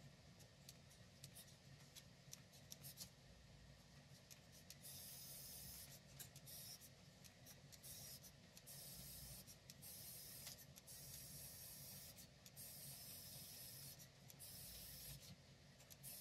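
Faint handling of a plastic 3D pen: small clicks, then from about five seconds in, repeated soft hissing stretches about a second long.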